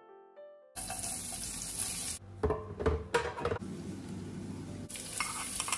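Kitchen sounds cut together. A loud hiss starts suddenly about a second in, followed by several sharp clatters, then the steady splash of water poured from a glass jug over broccoli in a bowl.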